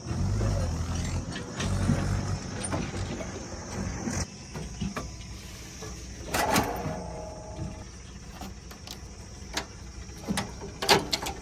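Heavy machinery's diesel engine running low, louder for the first second or so and then fainter, with scattered metallic clanks and clicks and a louder clatter about two thirds of the way through.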